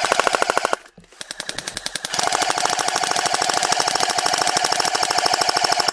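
Airsoft rifle firing full auto: a short burst, then one long sustained burst of rapid, evenly spaced shots that grows louder about two seconds in.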